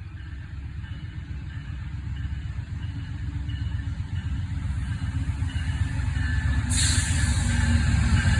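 Train approaching, its low engine rumble growing steadily louder, with a sudden loud hiss coming in near the end.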